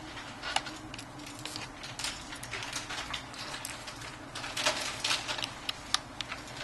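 Small irregular clicks, taps and light scrapes of a screwdriver and tiny metal screws and parts as the screws and connector cover plate are taken off inside an iPhone 6, with a few sharper clicks in the second half.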